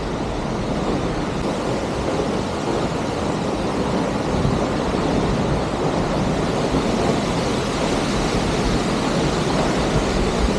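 Steady rushing noise of the Hunua Falls waterfall, with gusts of wind buffeting the microphone.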